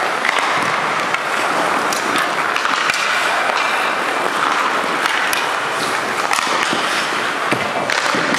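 Hockey skate blades scraping and hissing across the ice, with scattered sharp clicks of sticks and pucks.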